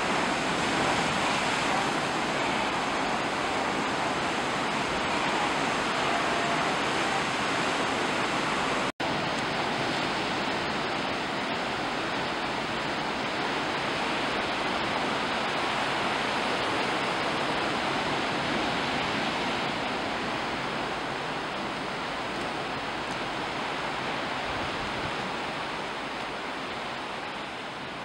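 Steady rushing noise of the sea, with waves washing over a rocky shore, cut off for a split second about nine seconds in and easing a little near the end.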